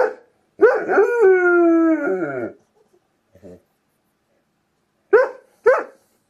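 German Shepherd howling: a short cry, then one long howl that drops in pitch at its end, and two short yelping calls near the end.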